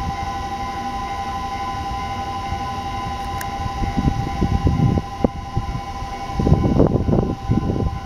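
Level crossing warning bell ringing steadily over a JR 251 series Super View Odoriko electric train moving past. The wheels and running gear rumble from about four seconds in, loudest around six and a half to seven and a half seconds, with a sharp click from the rails just after five seconds.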